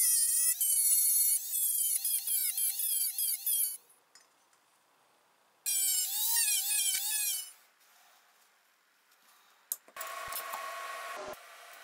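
High-speed rotary tool with an abrasive disc grinding the ends of square metal tubing: a high whine whose pitch repeatedly dips and recovers as the disc bites the metal, in two spells with a pause between. Near the end a quieter, steadier buzz with hiss comes in.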